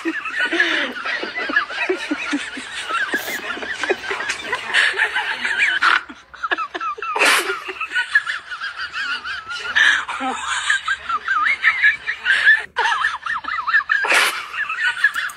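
Chicks peeping continuously in rapid, high chirps, with a sharp click about seven seconds in and another near the end.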